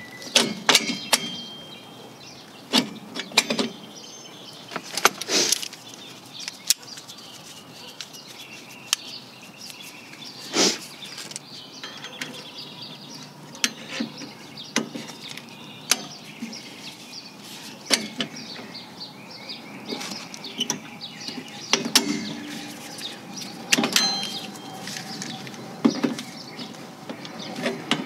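Irregular metallic clicks, clinks and knocks of a Toyota Yaris rear drum brake's shoes, return springs and hold-down hardware being handled and fitted onto the backing plate.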